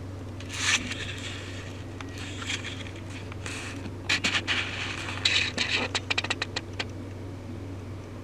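Paintbrush strokes scraping across the 3D-printed sword's surface: a few separate strokes, then a quick run of short dabbing strokes from about four seconds in to nearly seven seconds in. A steady low hum runs underneath.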